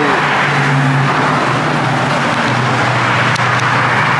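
A car engine running at a steady low hum over loud traffic and outdoor noise.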